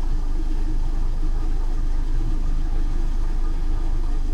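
Lawnmower engine running steadily, a low drone with no change in speed.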